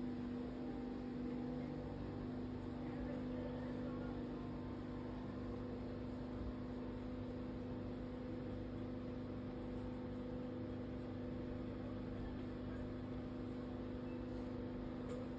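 A steady mechanical hum with a constant low tone and no change in pitch or level, like an appliance or fan motor running.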